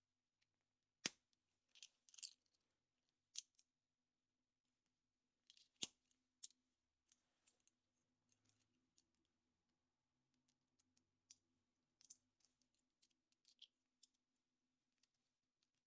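Faint handling sounds of a chocolate surprise egg and its plastic toy capsule being opened: scattered small clicks and crinkly rustles, with two sharper snaps about a second in and near six seconds in.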